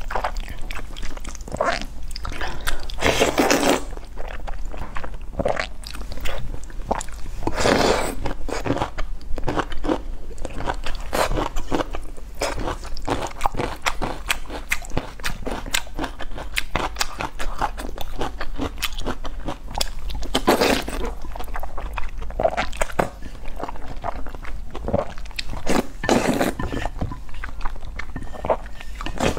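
Close-miked eating of saucy noodles: wet chewing full of small mouth clicks, broken by about four longer slurps as noodles are drawn into the mouth.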